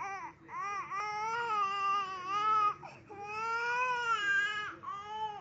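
A young child crying hard in a run of high-pitched wails: two short ones at the start, then two long drawn-out cries of nearly two seconds each, and a shorter one near the end.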